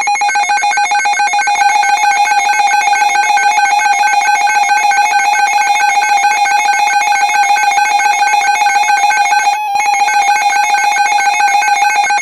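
Emergency Alert System attention signal: a loud, steady two-tone alarm with a fast buzzy beating. It breaks off briefly about ten seconds in.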